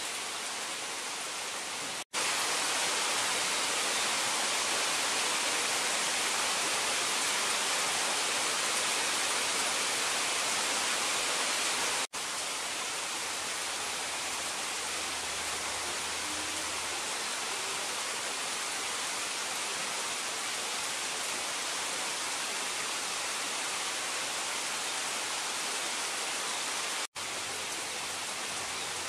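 Steady rain falling on foliage, an even hiss. It drops out for an instant and changes level at cuts about two, twelve and twenty-seven seconds in, loudest between the first two.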